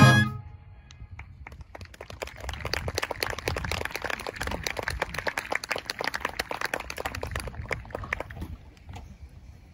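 The brass band's last chord cuts off right at the start, followed by applause from a modest audience that builds over a couple of seconds and dies away near the end.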